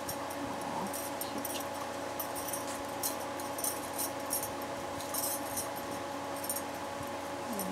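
Steady hum and whir of an electric pedestal fan, with scattered light clicks and jingles from hands and bracelets handling doll clothes.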